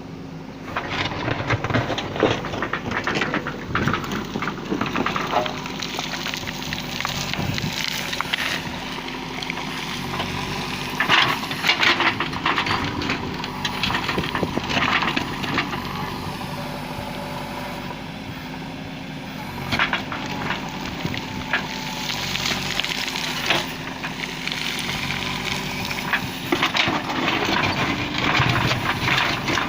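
JCB 3DX backhoe loader's diesel engine running steadily, with repeated bursts of cracking and crunching over it.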